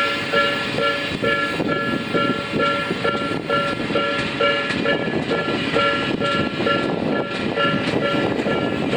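Japanese level-crossing warning bell ringing steadily in a repeating two-tone pattern while a train rolls over the crossing, its wheels clacking over the rail joints.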